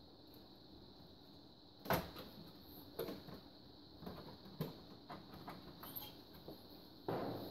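Clicks and knocks of a 3D printer's top cover panel being handled and pried at by hand, with a sharp knock about two seconds in, a scatter of lighter clicks, and a heavier knock near the end.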